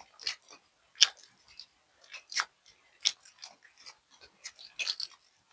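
Close-miked eating of crispy fried chicken: irregular sharp crunches and wet chewing, with the loudest bites about a second in and about three seconds in.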